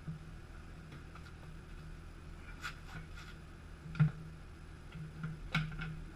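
A few sharp clicks and light knocks of tools and parts being handled during motorcycle wheel removal, the clearest about four seconds in and near the end, over a low steady hum.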